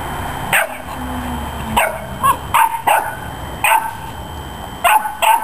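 Chow Chow puppy barking in play, about eight short, high-pitched yaps at uneven intervals.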